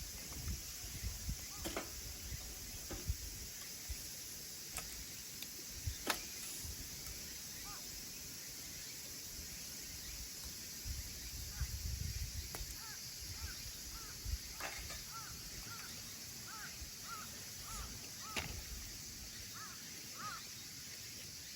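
Firewood burning in a small wood stove, crackling with sharp scattered pops over a steady hiss. A run of short high chirps comes in over the second half.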